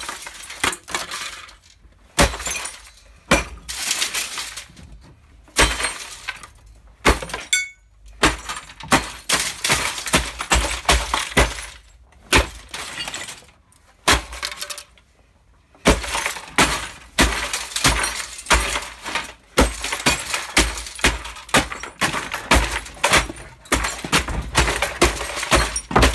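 A heavy wooden block pounds the wreckage of a Samsung TV over and over: its plastic casing, screen panel and metal parts crunch, crack and shatter with each blow. The blows come at an uneven pace of about one or two a second, with a short pause about halfway through.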